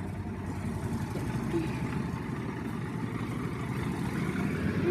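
Utility buggy's small engine running steadily with a fast low throb, really loud.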